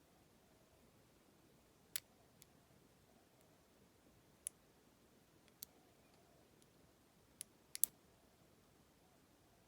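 Small sharp clicks from a lock pick working the pin stack of a challenge lock with serrated pins: about half a dozen scattered single clicks, ending in a quick double click near the end that is the loudest.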